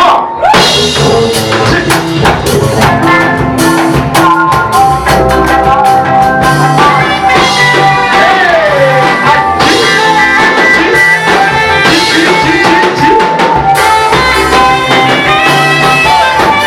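Church praise music played by a live band, with drum kit and guitar keeping a steady beat under sustained melody lines.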